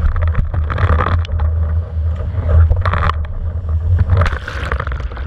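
Wind buffeting the microphone as a low, steady rumble while a windsurfer planes over choppy sea, with repeated hissing bursts of spray as the board hits the chop.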